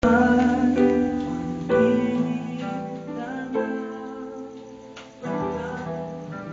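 Music: sustained chords, each struck anew roughly every two seconds, with a sharp click about five seconds in.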